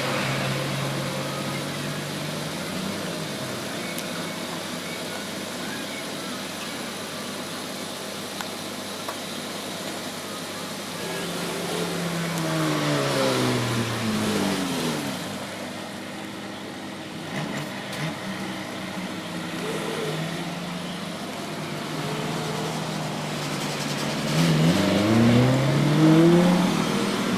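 Electric motor of a shoe-repair machine running, winding down partway through, then spinning back up near the end, its hum falling and then rising in pitch.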